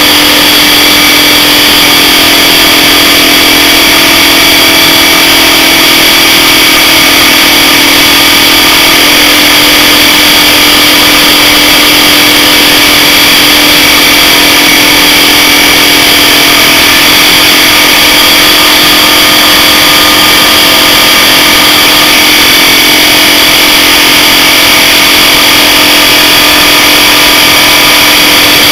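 Bulkon hermetic refrigerant compressor with its shell cut open, running loudly and steadily with no oil in it, a steady hum that shifts slightly in pitch a couple of times: a compressor being run dry to destruction.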